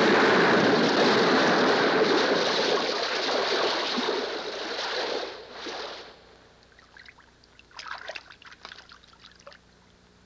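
Water crashing and splashing in a loud, even rush that fades out about six seconds in, followed by a few faint scattered ticks and near silence.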